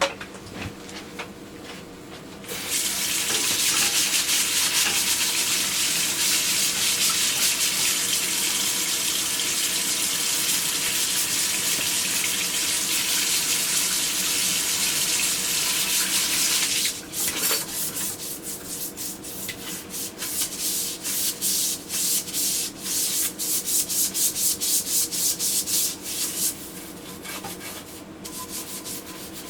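Water running steadily from a kitchen faucet into a sink, starting a couple of seconds in and stopping at about seventeen seconds. Then a brush scrubs the sink in quick back-and-forth strokes, fading to lighter strokes near the end.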